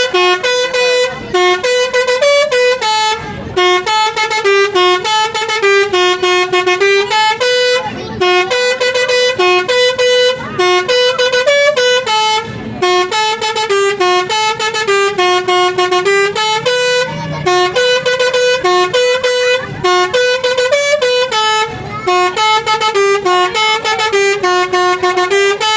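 Multi-tone telolet air horn on a Basuri bus playing a long melody: notes step up and down in repeating phrases, with short pauses between them.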